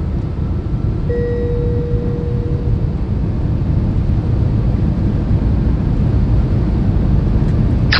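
Steady road and wind noise inside the cabin of a Tesla Cybertruck AWD at about 80 to 85 mph, near its demo limit of 85 mph. A faint steady tone comes in about a second in and fades after about two seconds.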